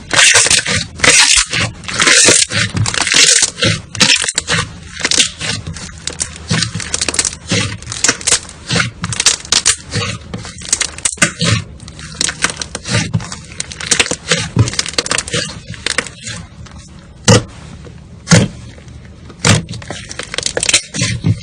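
Slime being squeezed and poked by hand, giving rapid, irregular crackling pops and clicks, with a few louder single snaps near the end.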